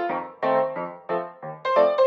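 Background piano music: notes struck in quick succession, each ringing briefly and fading before the next.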